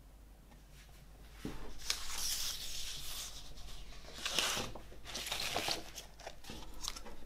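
Paper rustling and sliding in several bursts as a large printed album insert sheet is handled and laid on a wooden table.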